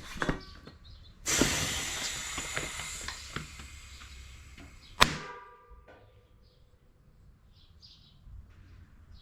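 A rush of air hissing into a tubeless mountain bike tire, crackling as it fills and slowly tailing off. About five seconds in, one sharp pop with a brief metallic ring: the tire bead snapping into place on the rim as it seats.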